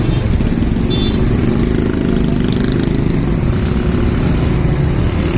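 Motor vehicle engine running steadily amid road traffic, a continuous low rumble.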